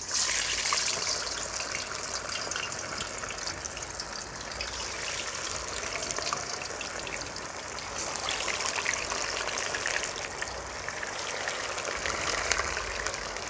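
Masala-marinated trevally pieces deep-frying in hot oil in a kadai: a loud, steady sizzling hiss with crackling. It starts suddenly as the first piece goes in and grows louder again about eight seconds in, as more pieces are added.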